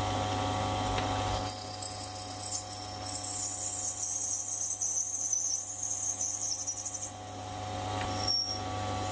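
Small metal lathe running with a steady motor hum while a high-speed steel tool turns an acetal plastic part down to size. The hiss of the cut starts about a second and a half in and stops about seven seconds in.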